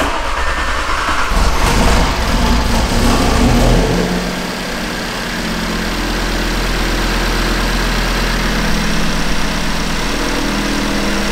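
Audi RS3's turbocharged 2.5-litre inline-five starting up: it comes in suddenly and runs high for about four seconds, then drops to a steady idle. It is quiet and running correctly now that a broken cam washer, which had let oil pressure leak from the cam sprocket, has been replaced.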